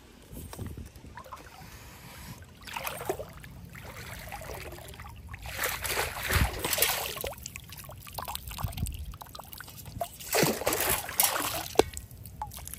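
Long-handled metal sand scoop digging into a shallow sandy riverbed: water sloshing and splashing in a few surges as the scoop is pushed in and worked, then water trickling out through the scoop's holes as it is lifted near the end.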